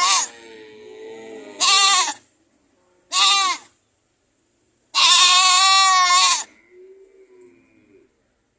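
Goats bleating and screaming: a string of loud, wavering calls, the longest about a second and a half, with fainter, lower bleats in between.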